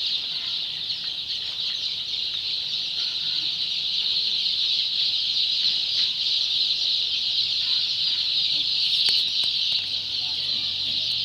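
A large flock of Sonali chicks in a brooding house peeping together as a continuous, dense, high-pitched chorus.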